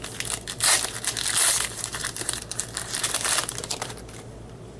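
A 2013 Bowman baseball card pack's wrapper being torn open and crinkled by hand: a run of noisy rustles that dies down near the end.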